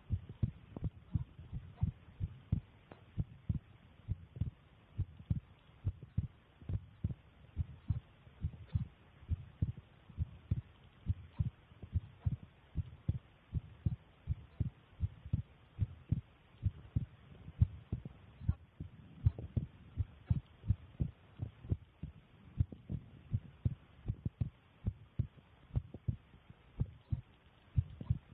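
A woman's heart beating at rest, recorded on a phone: a steady, even rhythm of low, muffled thumps, each beat a double thump, over a faint hiss.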